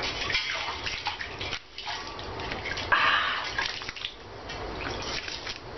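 Water splashing and sloshing in a bucket as it is handled, with a louder rush of water about three seconds in.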